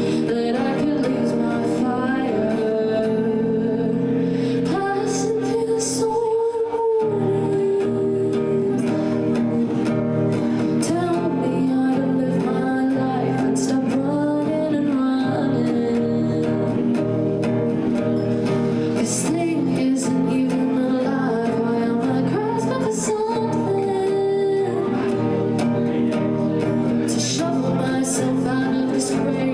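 Live music: a woman singing held, sliding notes over plucked guitar accompaniment.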